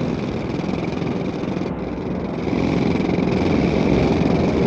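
Engine of construction-site machinery running, a dense mechanical rumble that grows a little louder about halfway through.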